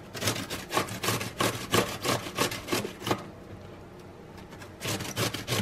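Cucumber being grated fine on a stainless steel box grater, in quick strokes about three a second. The strokes stop about three seconds in and start again near the end.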